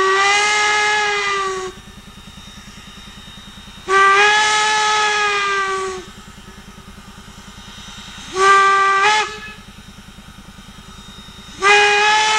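Steam locomotive whistle of Strasburg Rail Road 4-8-0 No. 475 blowing the grade-crossing signal: long, long, short, long. Each blast is a chord that slides up as it opens and sags slightly as it closes, with a fast low pulsing between blasts.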